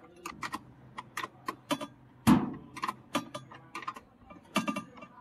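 Irregular sharp clicks and metal knocks from a tool tightening the mounting bolt of a washing machine's replacement motor, pushed up to tension the drive belt. The loudest knock comes a little over two seconds in.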